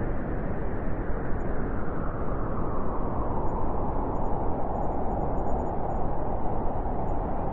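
Howling wind: a steady, rushing noise with a deep rumble underneath, its whistling howl swelling about halfway through.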